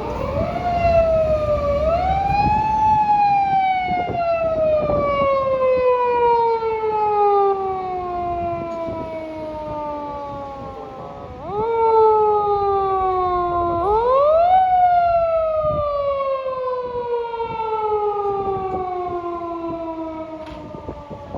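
Emergency vehicle siren wailing: the tone climbs quickly and then falls slowly over several seconds, again and again, with many tones sounding together. Road and engine rumble runs underneath.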